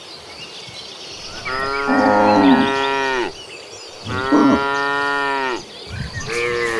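Cattle mooing: three long moos one after another, each dropping in pitch as it ends, with another cow's lower moo overlapping the first. The third moo is still going at the end.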